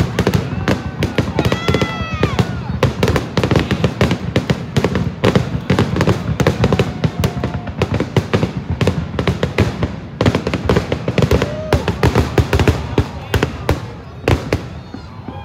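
Aerial fireworks shells bursting in a rapid, continuous barrage of bangs and crackle, thinning out in the last second or so.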